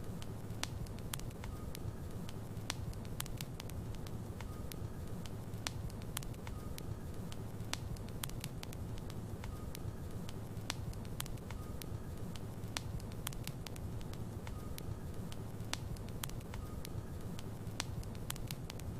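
Wood logs burning in a fireplace: a steady low rumble of the flames with frequent sharp, irregular crackles and pops.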